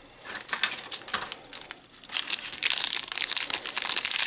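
Small clear plastic bag of metal miniature parts crinkling as it is handled in the fingers, the crackles coming thicker about halfway through.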